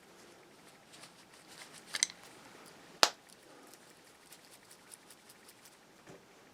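A popper (snap fastener) snapping shut with one sharp click about three seconds in, after a few softer clicks and fabric handling about two seconds in.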